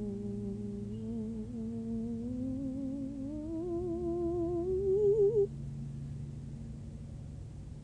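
A woman's voice humming one long wordless tone. It holds steady, then slides slowly upward and wavers before breaking off about five and a half seconds in, over a lower steady tone that continues underneath.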